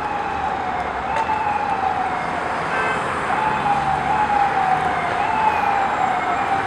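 Emergency vehicle siren sounding continuously. Its pitch jumps up and slides slowly down about once a second. It plays over a steady hiss of background noise with a few sharp clicks.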